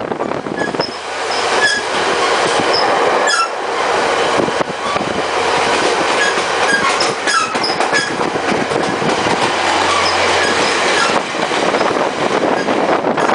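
Passenger train heard from aboard while under way: a steady rumble and clatter of the wheels on the rails, with brief high wheel squeals scattered through.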